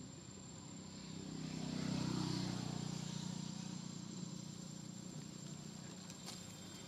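A motor vehicle passing at a distance: a low engine and road hum that swells to its loudest about two seconds in, then slowly fades.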